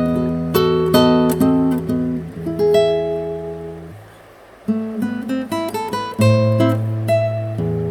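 Background music played on acoustic guitar, plucked and strummed notes over a held bass line, briefly fading about halfway through before picking up again.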